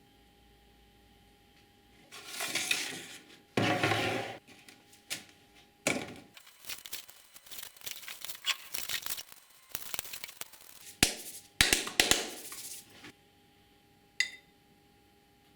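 Irregular clatter of hard objects being handled: scrapes and rubbing noises, several sharp knocks close together, and a single clink near the end, over a faint steady hum.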